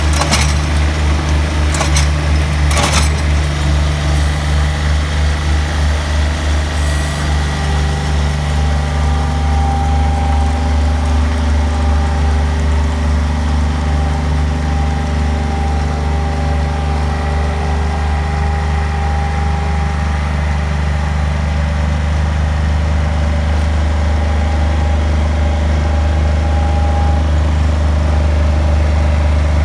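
Bobcat skid-steer engine running steadily with a low, pulsing drone. Three sharp knocks come in the first three seconds.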